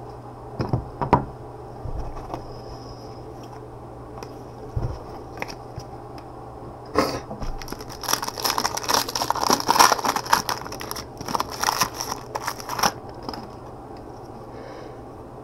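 Trading cards and their packaging being handled by gloved hands: a few light knocks about a second in, then several seconds of dense crinkling, scraping and rustling around the middle.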